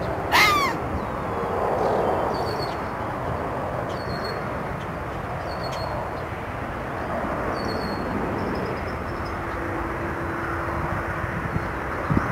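Red fox giving a single short, high bark about half a second in, over a steady background rumble. A small bird chirps faintly several times in between.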